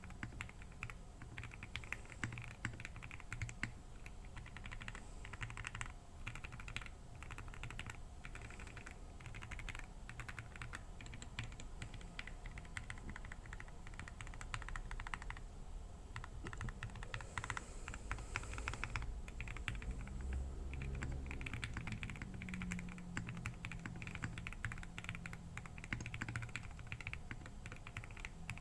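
Typing on a KBDfans Tiger 80 mechanical keyboard with lubed SP-Star Meteor White switches, a polycarbonate plate and PBT Cherry-profile keycaps: a fast, continuous run of keystrokes with a short pause about halfway through.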